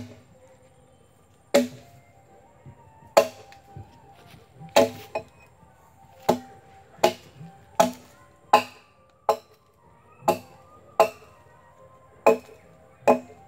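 Axe chopping into a felled log, about a dozen sharp blows on the wood. The blows start about a second and a half apart and quicken to under a second apart.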